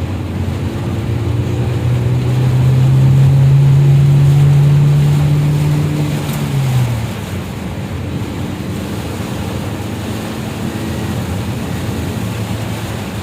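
An engine hum swells over a few seconds, rising slightly in pitch, then drops away about seven seconds in, over a steady rushing noise of wind and water.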